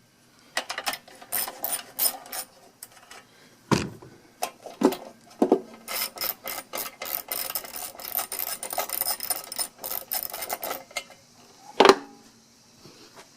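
Hand tools and metal parts of a push lawn mower clicking, scraping and knocking during repair work, in quick irregular clicks with a loud knock near the end.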